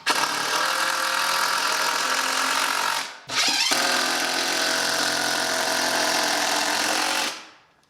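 An electric power tool's motor running at a steady pitch in two bursts of about three and four seconds, with a short pause between. The second burst winds down at the end.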